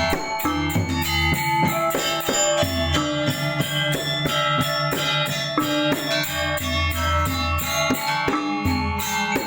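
Balinese gamelan playing a tabuh: bronze metallophones struck in quick ringing strokes, over a deep low tone that swells in and fades several times.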